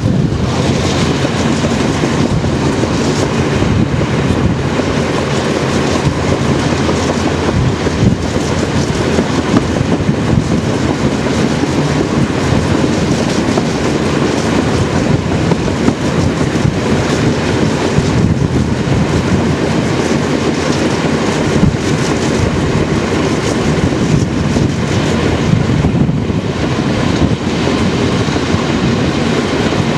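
Passenger train carriage running along the track at speed: a steady rumble of wheels on the rails with scattered clicks as the wheels cross rail joints.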